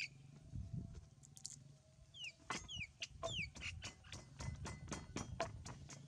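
Steady rhythmic knocking of food being prepared by hand, about three to four strokes a second, starting about two and a half seconds in. A few short falling bird chirps come in just before and among the first strokes.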